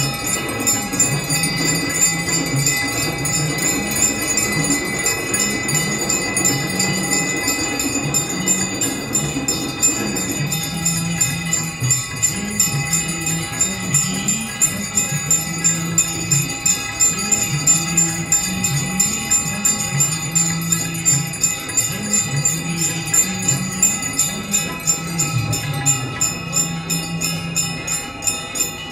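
Brass bells ringing rapidly and continuously during a Ganga aarti, over a devotional aarti song sung by a man. A regular beat becomes clearer in the second half.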